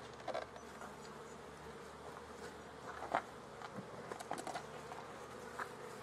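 Honey bees humming steadily around an opened beehive, with a few light knocks as the wooden hive roof is lifted off the honey super.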